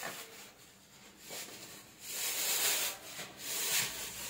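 Rustling of a waterproof mattress protector's fabric as it is pulled up and handled at the mattress corner, a few swishes with the loudest two in the second half.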